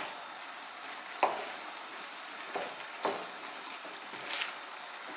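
Chicken, vegetables and mung bean sprouts sizzling in a deep frying pan, stirred with a wooden spoon that knocks and scrapes against the pan four times.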